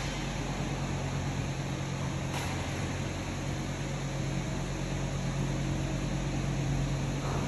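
Ventilation system running: a steady low mechanical hum with an even rush of air.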